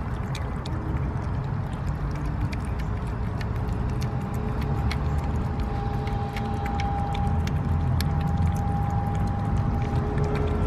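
Several cats eating wet cat food from plastic bowls, making quick wet clicking and smacking sounds of chewing and lapping. A steady low rumble runs underneath, and a faint steady hum joins about four seconds in.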